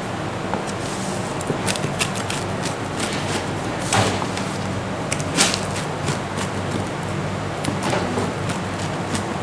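Rolling pizza cutter slicing through a baked pizza crust on a paper-covered wooden board, with a few short crunches and knocks, the loudest about 4 and 5.5 seconds in. A steady low hum runs underneath.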